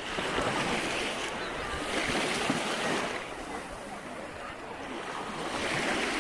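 Ocean waves breaking and washing in, the rush of surf swelling three times.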